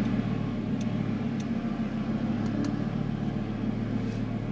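Audi RS3's 2.5 TFSI five-cylinder engine running at a steady idle, heard from inside the cabin, with a Milltek valve-bypass exhaust. A few faint light ticks can be heard over it.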